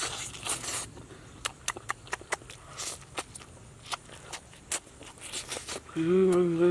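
Close-miked eating: wet mouth clicks and smacks with a few short sucking sounds as food is eaten from the hands, then a held hummed "mmm" about six seconds in.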